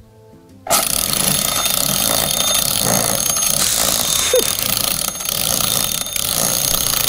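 Homemade Arduino alarm clock going off suddenly about a second in with a loud noise like a thousand jackhammers, which runs on steadily and stops just after the end.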